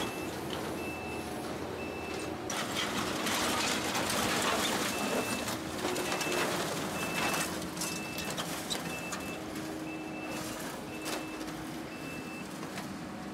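Kubota skid steer running with its backup alarm beeping steadily, a short high beep repeating about every two-thirds of a second as it reverses. Between about two and a half and seven seconds in, a louder stretch of rattling noise and sharp knocks rises over the engine.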